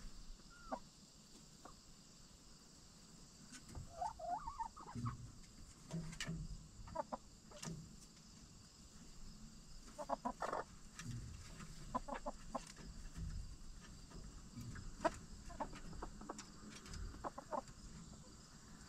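Backyard hens clucking, short calls in scattered groups a few seconds apart, with occasional soft knocks and clicks.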